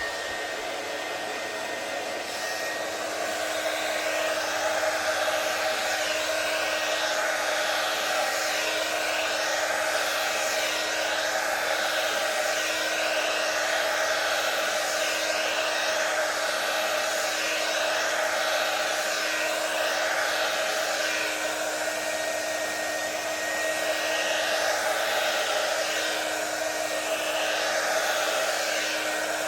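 Handheld two-speed hair dryer running steadily, a rush of air over a steady motor hum, growing louder about four seconds in.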